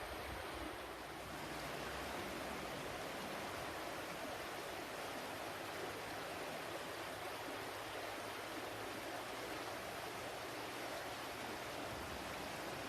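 Water flowing steadily, an even noise that does not change.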